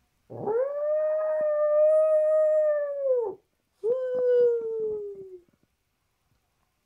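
Two long howls. The first glides up and then holds steady for about three seconds before dropping off. The second, shorter one falls slowly in pitch.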